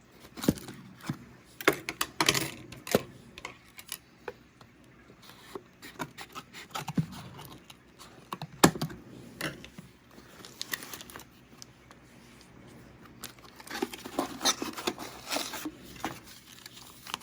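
A package being cut and opened by hand: scattered scrapes, taps and rustling of packaging, with a denser stretch of rustling about 14 seconds in.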